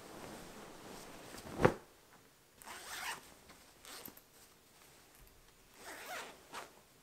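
Fabric rustling as a cotton duvet cover is pulled and shaken, in a few short swishes, the sharpest about one and a half seconds in.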